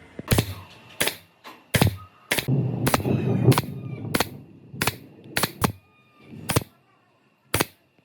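About a dozen sharp taps or knocks on a hard object, unevenly spaced, with a rougher, noisier stretch about three seconds in.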